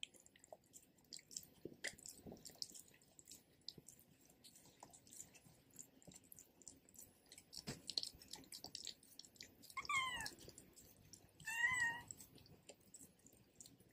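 Pit bull licking and chewing peanut butter out of the end of a bone: a steady run of small, wet licking and smacking clicks. Near the end, two short, high, wavering calls come a little under two seconds apart.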